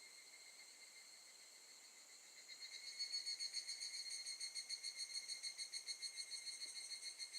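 Higurashi (evening cicadas, Tanna japonensis) calling in high, ringing tones. A faint, distant call gives way about two and a half seconds in to a much louder, closer call that pulses rapidly.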